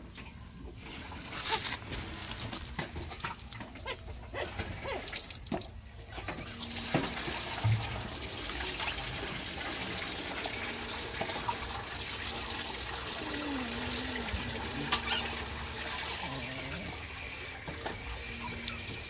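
A dog eating wet rice and fish from a plastic basin: wet lapping and chewing with many small clicks and smacks.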